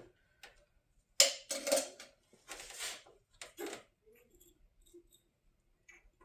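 Tools and metal parts being handled while a radiator's hoses are taken off: a sharp clack about a second in, then several short scraping rattles, fading to faint light ticks.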